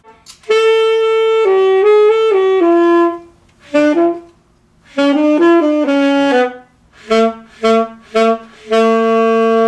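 A student plays a saxophone melody in separate notes and short phrases: a falling run first, then three short notes and a long held note near the end.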